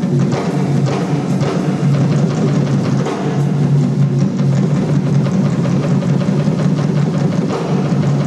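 Live rock and roll band playing, with the drum kit to the fore: a run of drum strikes over a steady low bass line.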